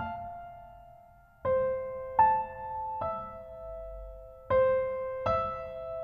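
Slow, sparse piano music. Single notes are struck one at a time and left to ring out, five in all after a pause of over a second at the start.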